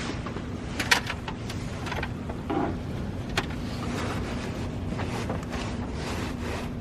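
A couple of sharp clicks, about a second in and again a few seconds later, as power is put to an automotive relay through jumper wires to test whether it makes contact, over a steady low mechanical hum.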